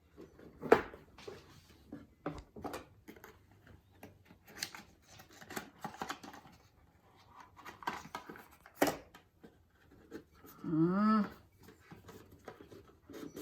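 A gift box of wireless headphones being opened by hand: scattered clicks, rustles and scrapes of cardboard and plastic packaging, with a sharp click about nine seconds in. A short hummed voice sound rises and falls about eleven seconds in.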